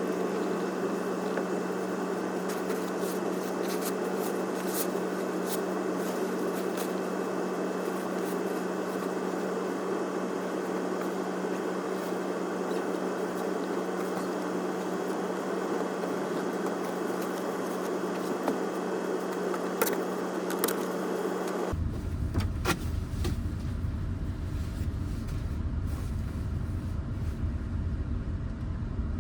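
Steady road and engine noise inside a Nissan Serena minivan on the move, with scattered light clicks. About three-quarters of the way through it changes abruptly to a deeper rumble with less hiss.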